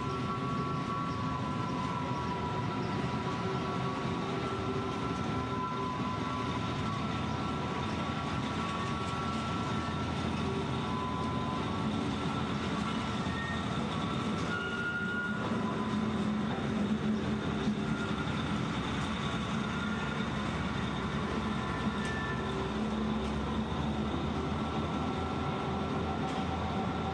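Freight train of hopper wagons rolling slowly over street-level track, with thin high wheel squeals coming and going. In the second half a diesel shunting locomotive passes with its engine running, a little louder.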